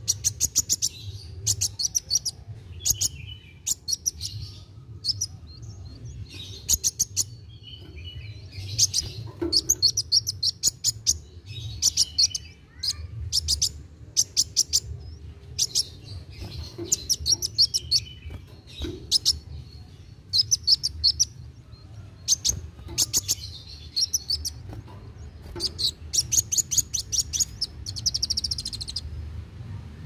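Sunbird singing in rapid, chattering trills of high ticking notes, phrase after phrase with short pauses between. This is the vigorous nonstop song that Indonesian bird-keepers call 'gacor'.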